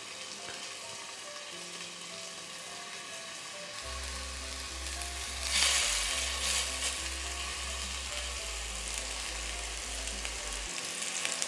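Raw minced-chicken kebabs sizzling in oil on a hot nonstick tawa, the sizzle swelling briefly about five and a half seconds in as another kebab is laid on the pan. Soft background music plays underneath.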